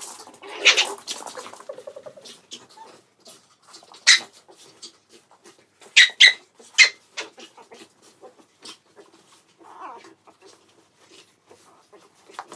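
Two West Highland white terriers playing and digging at towels on a laminate floor: claws clicking and scratching on the floor and fabric. A louder burst comes about a second in, then a few short sharp sounds, one about four seconds in and three close together about six seconds in.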